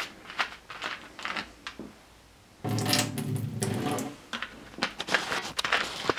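Plastic water bottle handled with light clicks and crinkles as its cap comes off, then water pours out of it into a drinking glass for about a second and a half, about halfway through, followed by more clicking and crinkling of the plastic.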